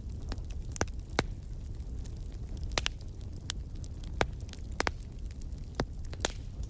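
Wood fire in a fireplace crackling, with sharp irregular pops and snaps over a low steady rumble of the flames.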